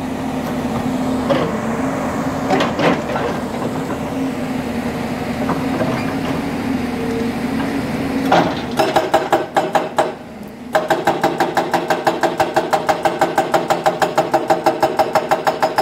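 JCB 2180HD hydraulic breaker on a JCB NXT 215LC excavator breaking rock. For the first half the excavator's engine runs steadily under a few scattered knocks. Then, about nine seconds in, the breaker starts hammering, pauses briefly, and settles into a fast, even run of blows, about seven a second.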